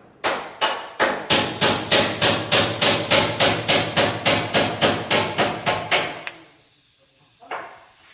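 A hammer striking the stainless-steel sheet of a range, about twenty quick, even, ringing metallic blows at roughly four a second. The blows stop about six seconds in and are followed by one fainter knock near the end. This is work on the sheet metal in preparation for a weld seam.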